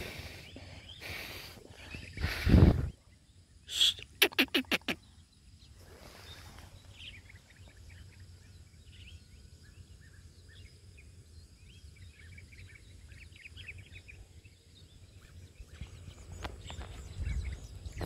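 Outdoor sound with low rumbles of wind or handling on the microphone. About four seconds in comes a quick run of six harsh, evenly spaced calls, then faint scattered high chirps of small birds.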